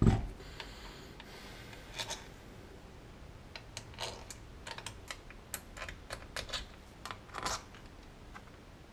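A dull knock at the very start, then scattered light metallic clicks and taps as bolts and the Honda Astrea engine's crankcase are handled and set down on the bench.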